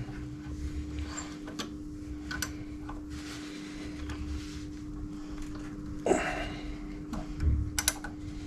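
Hand tools working on the motorcycle's front brake caliper bolts, which are very tight: scattered metallic clicks, with a short scrape about six seconds in and two quick clicks near the end, over a steady low hum.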